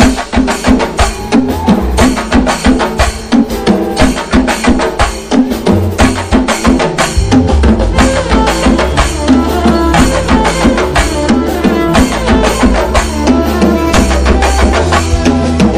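Background music with a fast, steady drum beat; a heavy bass comes in more strongly about six seconds in.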